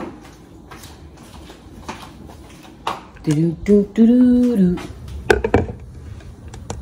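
A person's voice sounding three short held notes, about three to five seconds in, with no words. A few sharp knocks follow just after, as the camera is picked up and moved.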